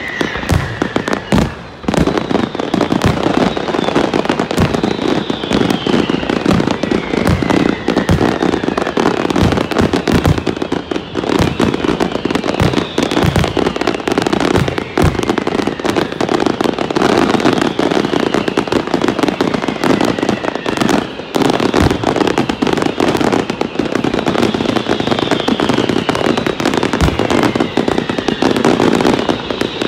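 Fireworks display: a dense, continuous barrage of bangs and crackling, with high whistles falling in pitch every few seconds.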